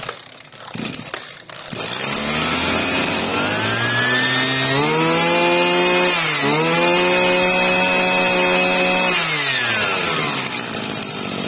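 Small two-stroke brush cutter engine, a 25cc unit, starting up, then revved: its pitch climbs, holds at high throttle with one brief dip, and falls back toward idle near the end. The steady strong revving is shown off as the sign of a powerful, well-running engine.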